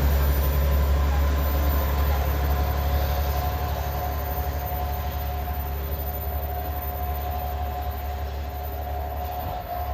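A JNR Class DE10 diesel-hydraulic locomotive hauling open sightseeing cars. Its diesel engine drones low and steady with the running noise of the train on the rails, fading slowly as the train moves away.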